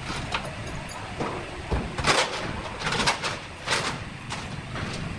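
Sawmill machinery running steadily, with about four short harsh noises over it, the loudest about two and three seconds in.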